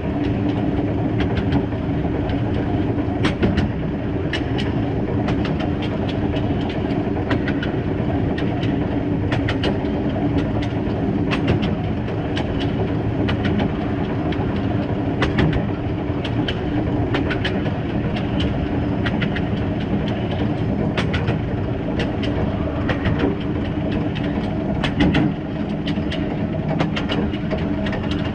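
Small 1909 0-6-0 well-tank steam locomotive running along 760 mm narrow-gauge track, heard at the front of the engine: a steady running noise with frequent sharp clicks of the wheels over the rail joints.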